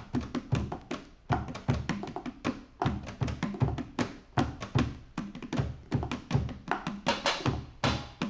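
Drum kit played in quick, irregular hits as part of an instrumental rock recording, with low drum thumps under sharper strikes. Brighter, splashier hits that sound like cymbals build up near the end.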